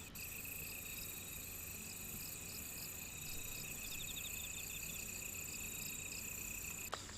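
Night chorus of crickets and other insects: steady high trills with short chirps repeating evenly on top, and a brief rapid trill about four seconds in.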